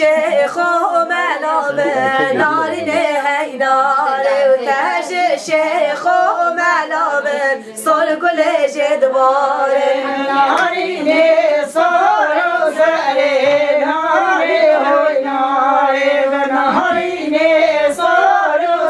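Women singing a Kurdish song unaccompanied, with no instruments.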